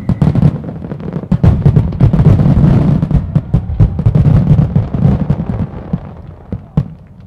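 Fireworks display at full barrage: star mines and aerial shells bursting in rapid, overlapping bangs that build to a dense peak a couple of seconds in, then thin out to scattered single bangs near the end.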